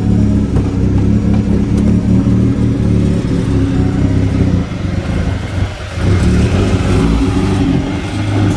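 Honda B20 four-cylinder engine running in the car, mostly steady, with a dip and a change in its note about five to six seconds in.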